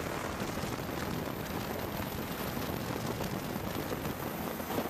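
Helicopter noise heard from inside the cabin: a steady, rough rushing roar with rapid crackling buffeting and no clear engine tone.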